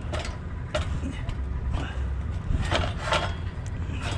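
Light metallic clicks and taps from small boat-trailer hardware being handled at the tongue, a handful of separate clinks over a low steady rumble.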